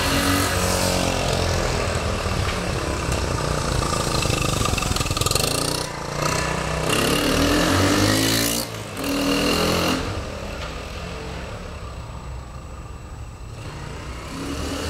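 1986 Honda CT110 Trail's single-cylinder four-stroke engine under way. The revs rise and drop back twice as it shifts up through the gears. It passes close by about eight seconds in, then grows fainter as the bike rides away.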